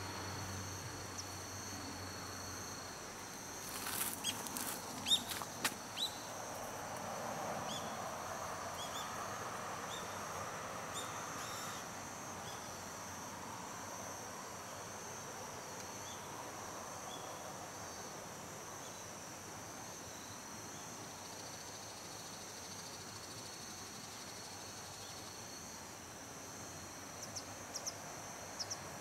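Autumn insects such as crickets trilling steadily at two high pitches, with a few sharp clicks about four to six seconds in.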